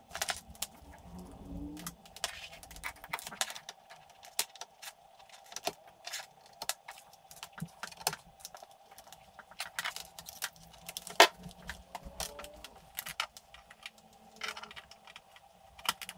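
Cables and plugs being handled and connected to the back of an Amstrad CPC464 home computer: irregular clicks, taps and rattles of connectors and leads, one sharper click about eleven seconds in.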